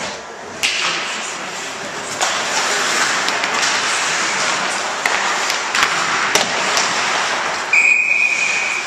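Ice hockey play in an echoing rink: steady wash of skates and players with several sharp knocks of sticks, puck and boards, and a referee's whistle blown once for about a second near the end.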